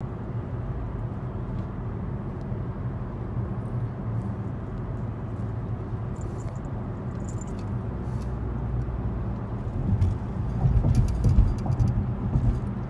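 Car cabin noise while driving: a steady low road and engine rumble, turning louder and more uneven about ten seconds in.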